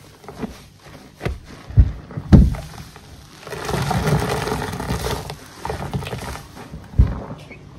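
Soapy bath sponges squelching as they are squeezed in a basin of sudsy water, a few separate squishes in the first couple of seconds and another near the end. In the middle comes a longer hissing stretch of foam and water streaming out as the sponges are lifted and wrung.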